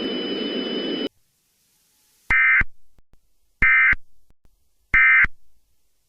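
Emergency Alert System end-of-message data bursts: three identical short warbling digital tones, each about a third of a second, starting about 1.3 s apart. This is the SAME "NNNN" code that closes an alert. Before them, a steady hiss with a thin high whine cuts off about a second in.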